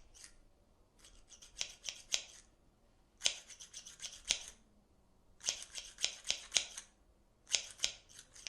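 Scissors snipping: groups of quick sharp cuts, several in a row, with short pauses between the groups.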